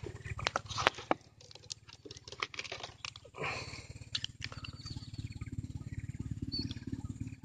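Wind buffeting the microphone in a low, fluttering rumble, with a quick run of sharp clicks and knocks over the first three seconds and a gust about halfway through.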